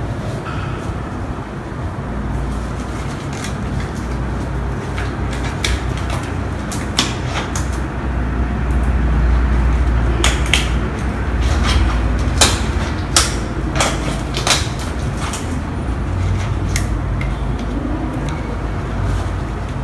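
Nursing equipment being handled and set down, heard as scattered clicks and knocks. Several sharp knocks come close together around the middle. A steady low rumble runs underneath.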